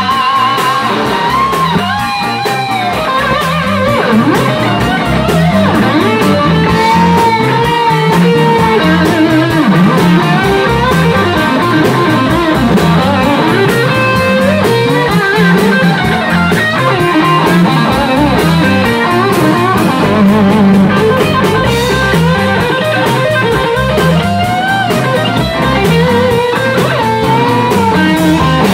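A live rock and roll band playing an instrumental break: a Stratocaster electric guitar plays a lead line of bent notes over drums, bass and a second electric guitar.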